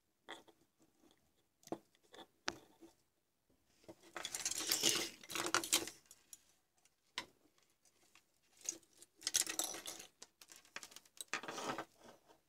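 Handling noise from hands working with small parts: a few light clicks, then three longer bursts of rustling and scraping, the loudest about four to six seconds in and the others around nine and eleven seconds in.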